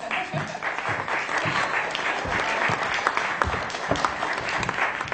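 Audience applauding, starting suddenly and dying away after about five seconds.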